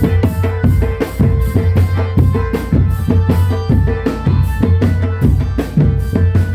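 Loud, drum-heavy street drum band music: rapid, dense drum strikes over a deep bass pulse, with a held melodic tone above.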